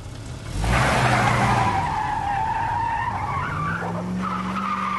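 Car tyres squealing as the car peels away under hard acceleration, with the engine running underneath. The squeal starts suddenly about half a second in and carries on as one long wavering tone.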